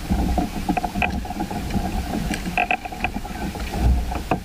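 Wind rumbling on the microphone, with water lapping and small irregular knocks against plastic kayak hulls.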